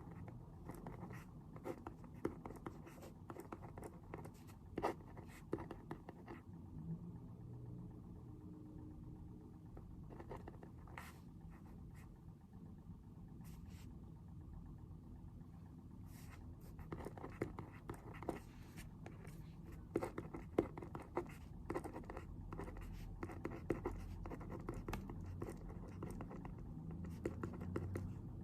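Pen writing on paper: small scratches and taps in two busy stretches with a sparser pause between them, over a faint low room hum.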